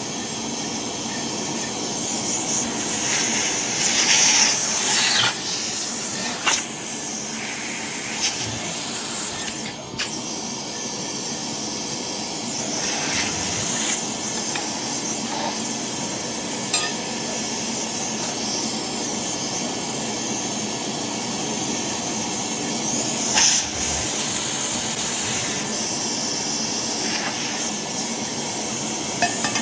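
Steady rushing noise from a running machine, with faint steady tones, broken several times by short bursts of higher hissing or scraping, the loudest about four seconds in and again near 23 seconds.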